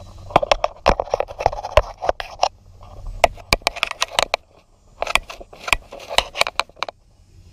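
Rapid clicking and clattering of tools and parts being handled, in three bursts with short pauses between.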